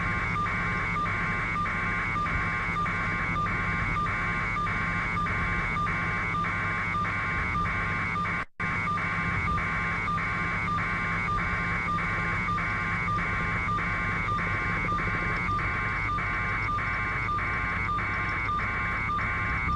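Helicopter cabin noise carried over a radio or phone link: a steady low drone, with a buzzing tone pulsing about twice a second. The audio drops out briefly about eight and a half seconds in.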